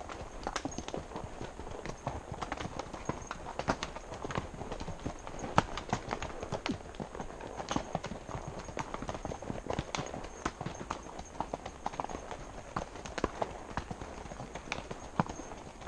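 A horse's hooves clip-clopping on a rocky dirt trail: a steady run of uneven knocks and clicks of hoof on stone and earth.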